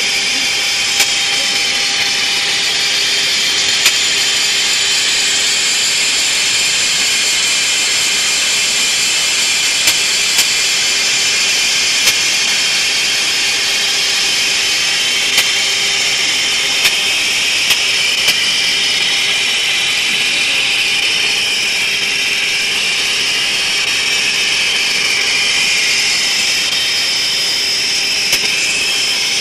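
Hwacheon VT-3000 vertical turning center cutting the outer diameter of a large forged steel ring: a loud, steady, high-pitched cutting noise over the machine's running, with about ten sharp ticks scattered through it.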